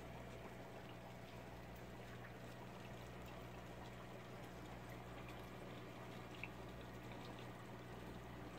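Faint steady trickle of water from an aquarium filter, with a low steady hum under it and one small tick about six and a half seconds in.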